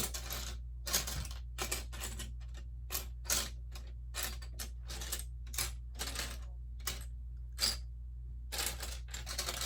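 Loose plastic Lego pieces clicking and rattling in short, irregular bursts as a hand sifts through them, searching for one piece.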